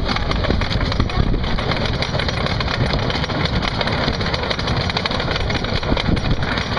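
Roller coaster train running along its track: a steady, loud rattling rumble.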